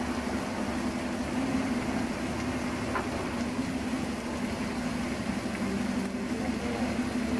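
Steady mechanical hum with an even hiss underneath, holding constant throughout.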